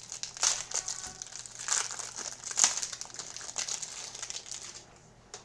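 Packaging of a sports-card hanger box crinkling and crackling in irregular bursts as it is opened by hand, stopping about five seconds in, with a single click near the end.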